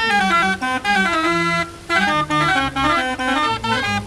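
Hand-cranked street barrel organ playing a tune: a melody of pipe notes over a moving bass line, with a brief break in the melody just before halfway.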